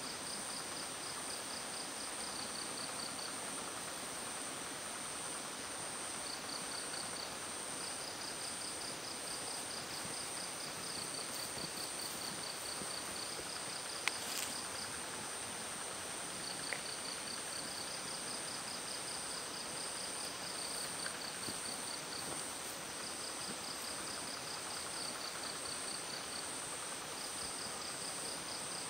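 Insects chirping: a steady high-pitched trill, with repeated runs of rapid, evenly pulsed chirps over it. A single sharp click about halfway through.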